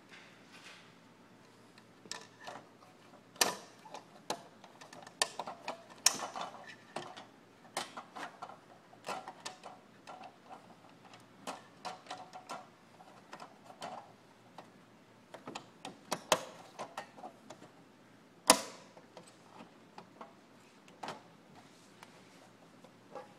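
Irregular clicks, taps and knocks of office cubicle panel parts being handled as a finish end is fitted into its high-low bracket, with one sharper knock about eighteen seconds in.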